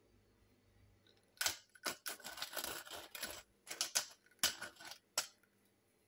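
Hand-turned pepper mill grinding black pepper in a series of about six short bursts, one longer run in the middle, starting about a second and a half in and stopping shortly before the end.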